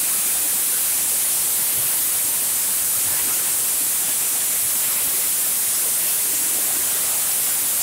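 Compressed air hissing steadily from a spray gun on an air hose as engine coating is sprayed, an even high hiss that does not let up.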